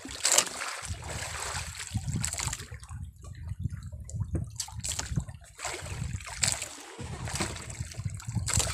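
Irregular water splashing and trickling at a small boat's side as a squid-jigging handline is pulled in hand over hand, water dripping off the line.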